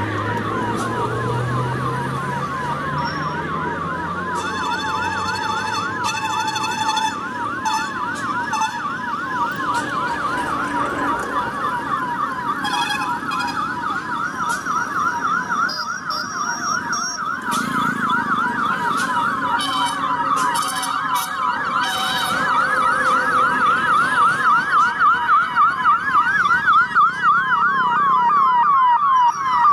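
Police vehicle sirens sounding together in a fast up-and-down yelp, over vehicle engines. The sirens grow louder about two-thirds of the way through.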